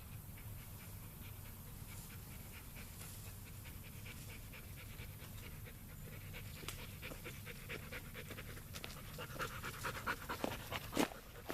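A dog panting steadily, with rustling, crunching footsteps through dry grass and leaves that grow louder from about six seconds in.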